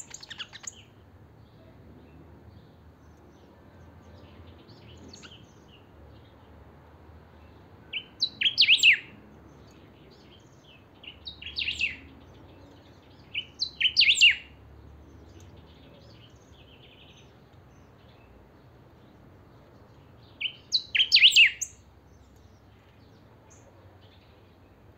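Caged songbird singing short, loud phrases: a brief one at the start, then four louder ones spread over the rest, with pauses of a few seconds between.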